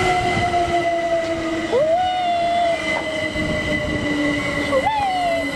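Great Western Railway Class 387 electric multiple unit coming into the platform, its traction motors whining in a slowly falling pitch as it slows. Short wheel squeals rise and fall about two seconds in and again near the end.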